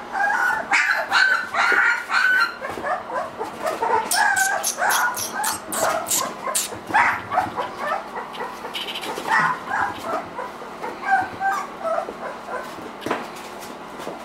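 Three-week-old Irish Wolfhound puppies whining and yipping: a string of short, high calls, busiest in the first half and thinning out toward the end. A run of sharp clicks sounds around the middle.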